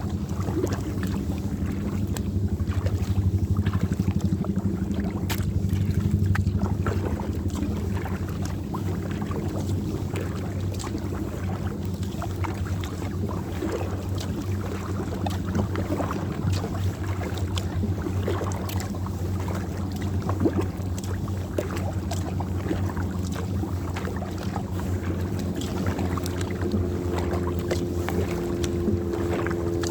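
Wind rumbling on the microphone, with water lapping and splashing against a kayak. A steady low hum joins in near the end.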